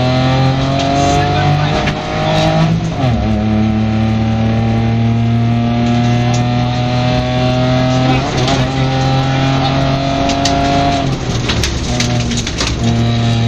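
Small rally car's engine heard from inside the cockpit, pulling hard under full throttle. It climbs steadily in pitch and drops sharply at upshifts about 3 s and 8.5 s in, then briefly lifts off around 11 s before going back on the power near the end.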